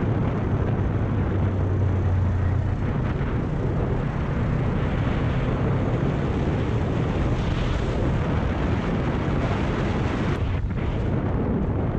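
Kawasaki Ninja 400's parallel-twin engine running as the motorcycle rides along, under a steady rush of wind on the microphone. The engine note is strongest in the first few seconds, then eases back under the wind.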